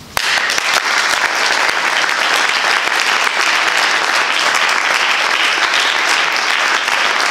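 Audience applause that breaks out all at once and keeps up steadily, greeting the end of a trombone and piano piece.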